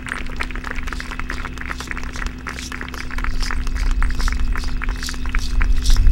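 Dense, rapid rattling clicks from dance percussion, with a low wind rumble on the microphone that grows louder toward the end.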